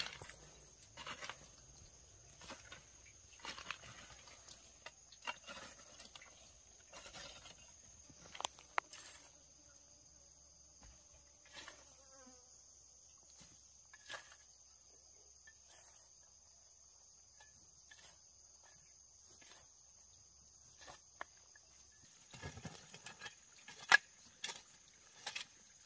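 Insects trilling steadily at a high pitch, with a second high tone joining about a third of the way in. Scattered light clicks and rustles sound throughout, with one sharp knock near the end.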